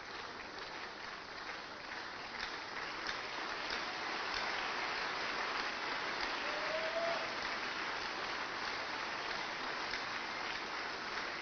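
A church congregation clapping in thanksgiving, growing louder a few seconds in.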